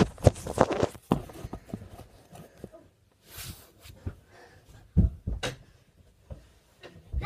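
Phone being handled and set down, its microphone picking up close knocks and rubbing, followed by scattered rustles and two low thumps about five seconds in as someone moves about.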